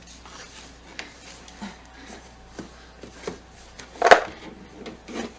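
Objects and packaging being handled during an unboxing: scattered light clicks and knocks, with one louder knock about four seconds in.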